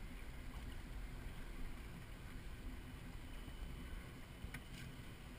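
Tow boat's engine running slowly, a low steady rumble, with a faint click about four and a half seconds in.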